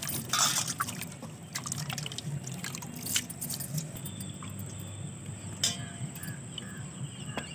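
Hands washing potatoes, tomatoes and coriander in a steel bowl of water. The water sloshes and splashes, most in the first second or so, and drips as the vegetables are rubbed and lifted out.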